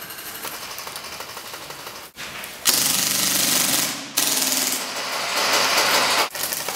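Airsoft MAC-11 submachine gun firing on full auto: two long rattling bursts, the first starting nearly three seconds in and the second following almost at once, each lasting about one to two seconds.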